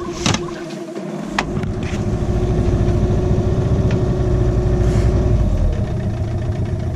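Outboard motor running, its hum filling in about a second in and then holding steady; the cooling water pump is frozen and not yet pumping water.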